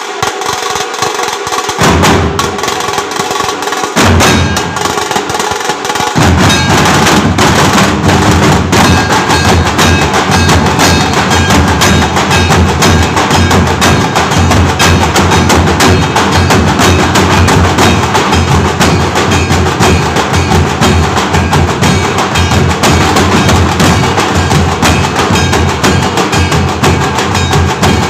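Nashik dhol and tasha group drumming: rapid sharp tasha strokes with single deep dhol beats about two and four seconds in, then from about six seconds the whole group of large Nashik dhols joins in a dense, loud, continuous beat.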